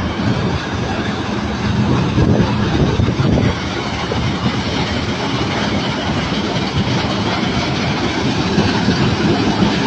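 Combine harvester running steadily, its engine humming under a continuous mechanical rattle and clatter.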